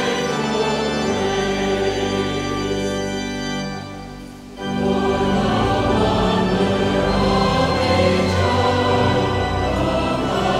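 Choir singing with instrumental accompaniment in sustained chords; the music drops away briefly about four seconds in, then comes back in full.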